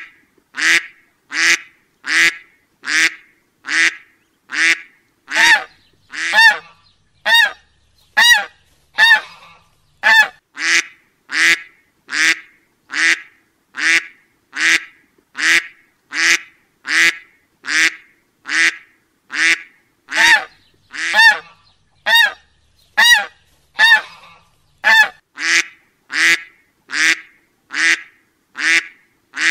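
Duck quacks repeated at an even, unbroken pace, about three every two seconds; some in the middle stretch come out with a clearer, higher tone.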